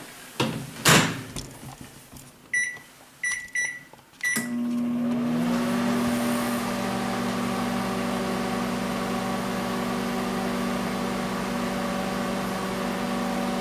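Two knocks, then four short keypad beeps, and about four seconds in the microwave oven starts and runs with a steady hum.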